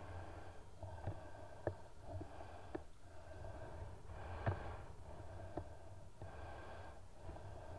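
Faint, muffled sloshing of shallow sea water around a wading person's legs, with a few light clicks and knocks scattered through it.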